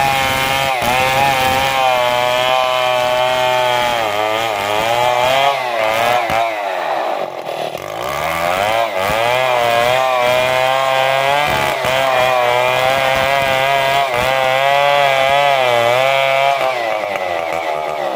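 STIHL two-stroke chainsaw ripping lengthwise down a damar log, the engine running hard under load with its pitch rising and falling as the chain bites. It eases off near the end.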